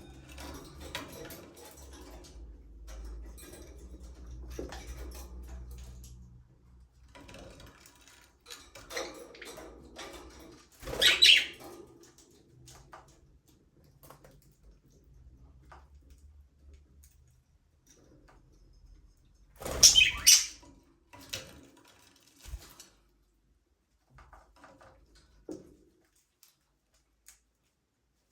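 Budgerigars chirping and chattering in short, scattered calls, with two much louder bursts of sound about 11 and 20 seconds in. The calls thin out to near quiet near the end.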